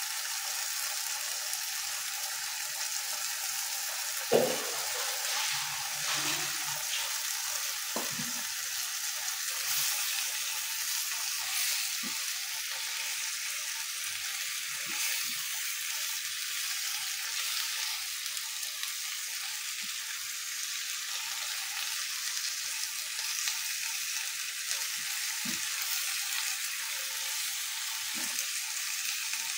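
Greens and tofu sizzling steadily as they are stir-fried in a nonstick wok, with the spatula stirring. There are a few short knocks against the pan, the loudest about four seconds in.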